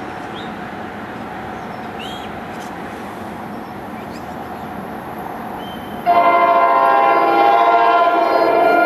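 A train rolling into the station with a steady rumble, then about six seconds in a locomotive's multi-chime air horn sounds a loud held chord. A few short bird chirps come before the horn.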